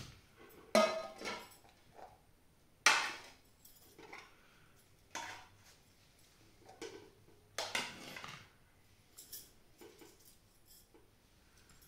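Metal spoon scraping and knocking against a cooking pot and platter while steamed rice is dished out: a series of short scrapes and clinks, the loudest about one and three seconds in.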